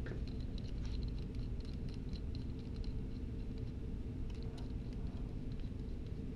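Light, irregular metallic clicking and ticking as polylock nuts are spun down by hand on a small-block Ford's roller rocker arms, taking the slack out of the pushrods during a valve adjustment, over a steady low hum.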